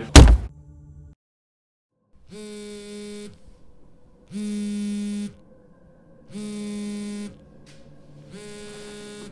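A sharp, loud slap across the face. After a short silence, a smartphone vibrating on a wooden table: four buzzes of about a second each, one every two seconds, as a call comes in.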